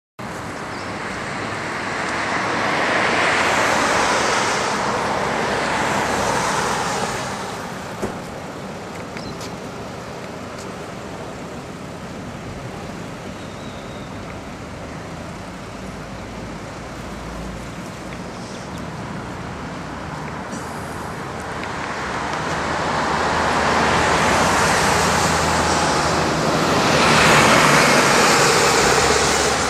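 Road traffic: steady noise of passing vehicles, swelling louder early on and again over the last several seconds as vehicles go by, with a single sharp click about eight seconds in.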